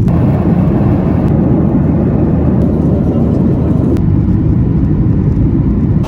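Steady, loud low rumble of a vehicle in motion, with a couple of faint clicks.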